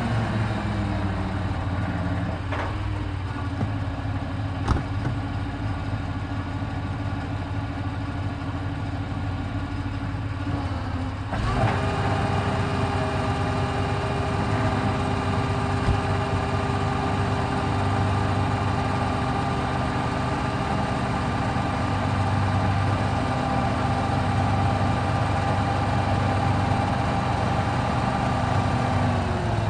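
Heavy vehicle engine idling, then speeding up suddenly about eleven seconds in and holding a higher, steady, louder speed until it drops back near the end, with a single click early on.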